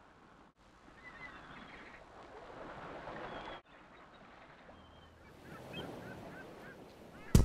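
A soft wash of surf with faint, scattered bird calls, the sound cutting out for an instant twice. Right at the end comes a sudden loud hit.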